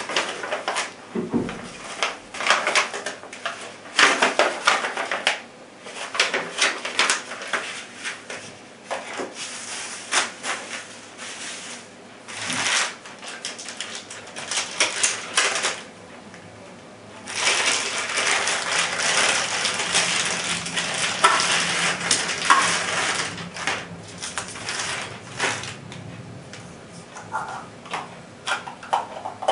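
Plastic wrapping and paper crinkling and rustling in the hands as packaged parts are unwrapped. It comes in irregular bursts, with a longer stretch of continuous crinkling a little past halfway.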